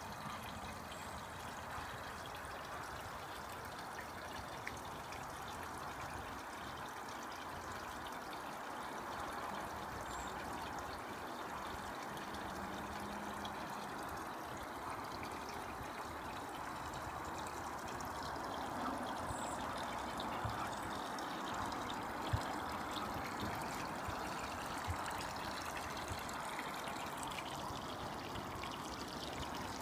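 Water running steadily into a koi pond: a continuous trickling, splashing pour, a little louder in the second half, with a couple of small knocks about two-thirds of the way through.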